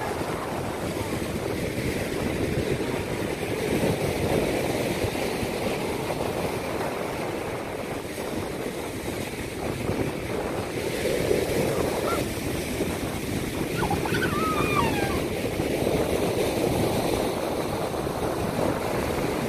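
Steady rush of sea surf mixed with wind buffeting the microphone.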